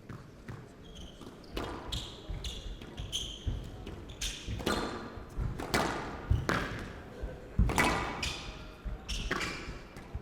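A squash rally: the ball cracks off rackets and the court walls about once a second, with shoes squeaking on the court floor and footsteps thudding.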